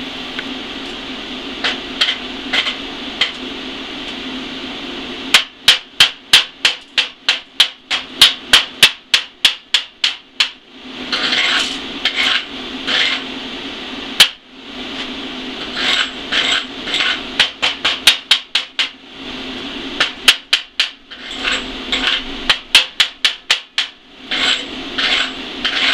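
Chipping hammer chipping slag off a freshly laid 7018 stick-weld bead on a steel plate, in runs of quick sharp strikes of about four a second, broken by short spells of scraping. The slag is being cleared to inspect the bead.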